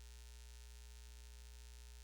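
Near silence with a steady low electrical hum and faint constant buzzing overtones.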